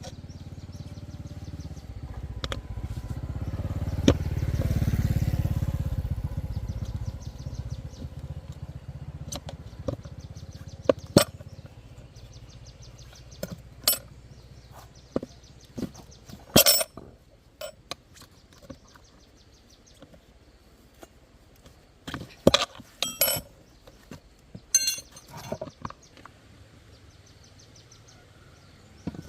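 A motorbike engine grows louder and then fades away over the first several seconds, followed by scattered sharp metallic clinks and knocks of tools being handled during inner-tube work.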